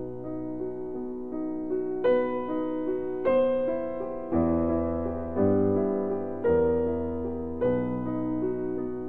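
Background piano music, with new notes or chords struck about once a second.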